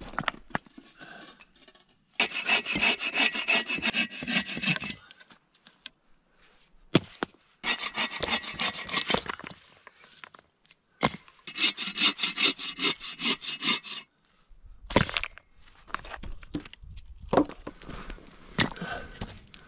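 Hand saw cutting through a log, in three runs of quick back-and-forth strokes with short pauses between. Near the end, scattered knocks and crunches on gravel.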